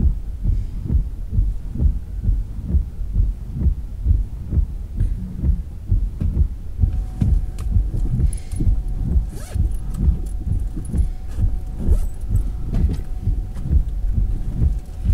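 Car windshield wipers sweeping across wet glass, heard from inside the cabin as a rhythmic low thumping about one to two times a second. From about seven seconds in, a faint steady tone and a few light clicks join it.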